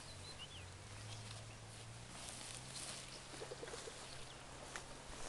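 Faint rustling and crackling of grass and soil as potato plants are pulled up by hand, with a few faint bird chirps early on.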